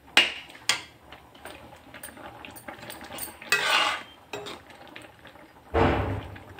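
A stirring spoon knocks and scrapes against an aluminium kadhai while mixing grated carrots simmering in milk. There are two sharp clinks near the start, then two longer scrapes, about 3.5 and 6 seconds in.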